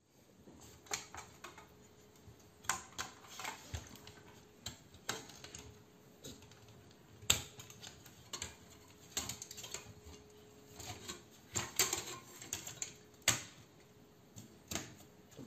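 Irregular clicks, taps and knocks of an MSI Radeon R9 380 graphics card being handled and its heatsink-and-fan cooler being pulled off the circuit board, with a few sharper knocks standing out.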